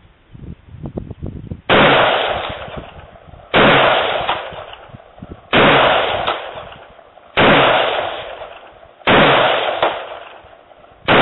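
Semi-automatic rifle firing six shots, about one every two seconds. Each shot is followed by a long echo that dies away.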